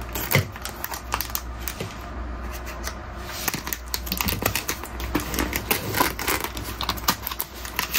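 Scissors cutting through a plastic mailer bag: a quick, irregular run of crisp snips and crackles of the plastic.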